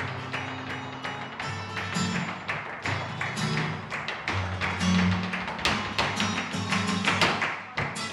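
Upbeat flamenco-style background music: bass notes that change every second or so, under a dense run of sharp percussive strokes.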